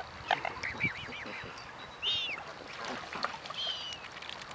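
Waterbirds calling: a quick run of short, high calls about half a second in, then a single longer call about two seconds in and another near the end.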